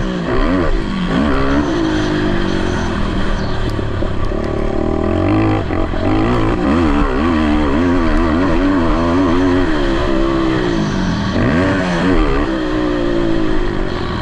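Racing quad (ATV) engines revving up and down continuously as the bikes race around a motocross track, the pitch rising and falling with each throttle change.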